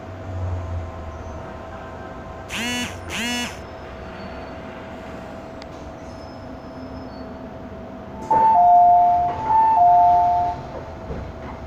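Steady running noise inside an MTR M-Train carriage, with a constant whine, nearing a station. Two short pitched tones sound about three seconds in. The loudest sound is a two-note chime, high then low, played twice from about eight seconds in: the on-board chime that comes before a station announcement.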